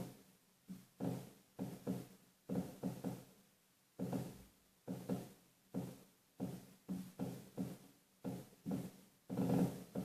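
Fireworks going off in an irregular barrage of dull bangs, one or two a second, each dying away quickly, with the loudest bang near the end.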